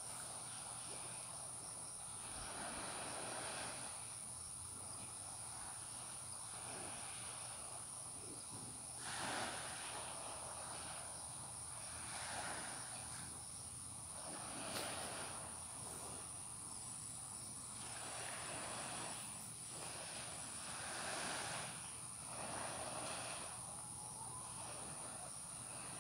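Steady high-pitched chirring of crickets, with a soft rush that swells and fades every few seconds.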